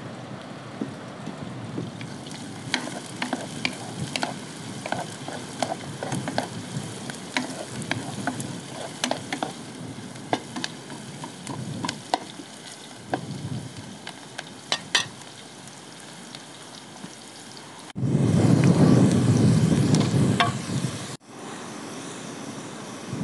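Wooden spoon stirring and knocking against a metal pot on a wood-fired can stove, with food frying in it: many sharp clicks and scrapes over a steady sizzle. Near the end, a louder rushing noise lasts about three seconds, starting and stopping abruptly.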